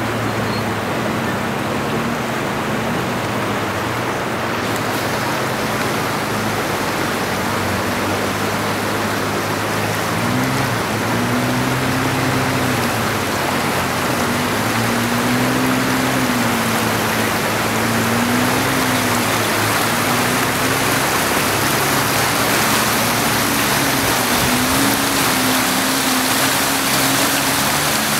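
Fast mountain river rushing over a stony bed and rapids, a steady water noise. Under it a low engine hum runs, holding one pitch at first and then rising and falling slowly from about a third of the way in.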